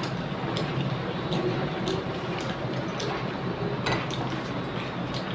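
A hand mixing rice and curry on a ceramic plate, with a string of light clicks and clinks of fingers against the plate at irregular intervals, over a steady background noise.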